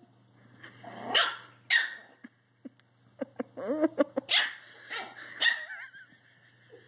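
Small dogs barking: several sharp barks, with high yips between them and a short wavering whine near the end.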